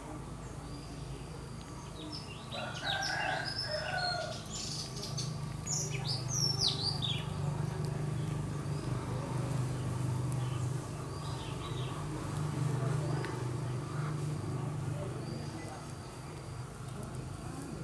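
Paper wasps buzzing on and around their open-comb nest, a steady low hum that swells through the middle. A bird calls with a quick run of chirps from about two to seven seconds in, with a few fainter calls later.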